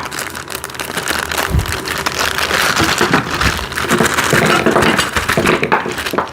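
Plastic parts bag being torn open and crinkled by hand, a dense irregular crackling.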